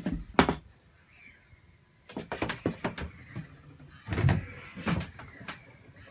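Wooden cabin cupboard doors being opened and shut: a run of sharp knocks and latch clicks, the sharpest just under half a second in, a cluster about two seconds in and a heavier thump about four seconds in.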